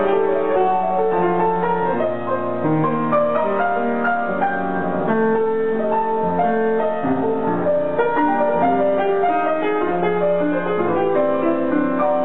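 Grand piano being played: a melody of held notes over chords, at an even, moderate loudness.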